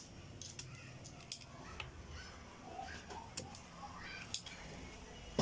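Soldering iron working the solder joints of an amplifier IC on a circuit board during desoldering: faint, scattered small clicks and crackles over a low steady background.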